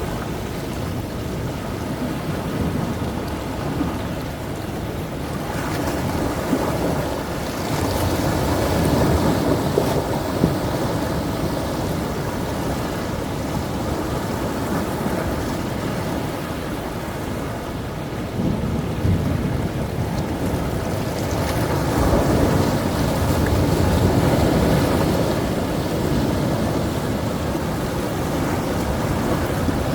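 Rough sea waves breaking and churning in a continuous rumble, swelling into two bigger surges, about a third of the way in and again about three quarters in.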